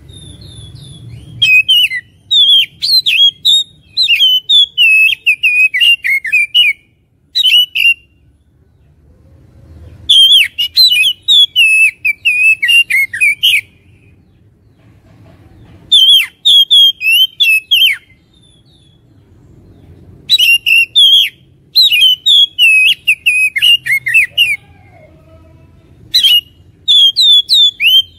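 Oriental magpie-robin (kacer) singing a lure song used to provoke other magpie-robins into singing. The song comes in about six loud bursts of rapid whistles and sharp chips, each one to five seconds long, with short pauses between.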